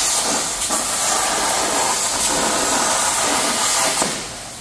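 iYeah CUT55 plasma cutter firing its arc at 40 amps: a loud, steady hiss as the hand-held torch pierces 14-gauge sheet. About four seconds in the arc cuts off, leaving a quieter hiss.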